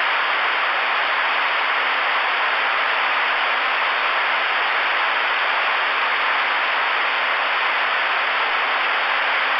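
Ten-meter radio receiver hiss: steady static from the Stryker SR-447HPC's speaker between transmissions, with a faint low hum under it. It starts abruptly when the last station stops talking.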